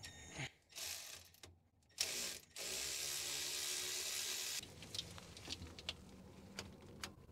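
A ratchet wrench clicking as it backs a bolt out of a Bobcat S250's actuator mounting: a short burst about two seconds in, then about two seconds of steady ratcheting that stops suddenly, followed by scattered light clicks of the tool and metal parts.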